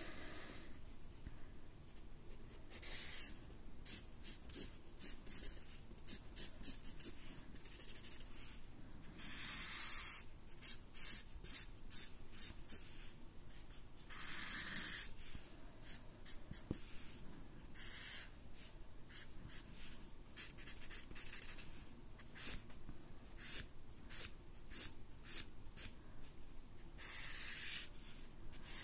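Sharpie permanent marker's felt tip drawing on paper: many quick, short scratchy strokes, broken by a few longer drawn strokes, including one near the end.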